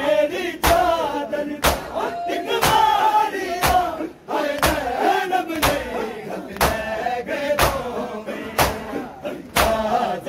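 Men doing matam, striking their bare chests with open hands in unison: one loud slap about every second, keeping time with male voices chanting a noha.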